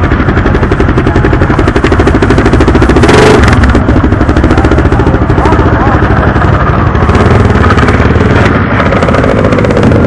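Motorcycle engines running loudly with a rapid, staccato exhaust beat.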